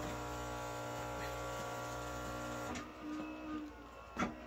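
Philips EP2221 automatic coffee machine running its pump with a steady hum that stops about three seconds in, which the repairer puts down to the flowmeter having no water in it yet. A brief click near the end.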